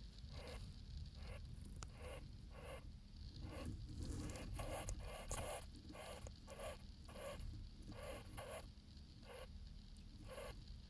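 Jerboa making short raspy, scratchy sounds, about fifteen of them at an irregular pace of roughly one and a half a second, over a low steady hum.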